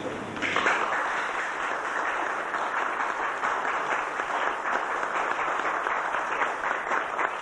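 Audience applauding: many hands clapping together, starting about half a second in.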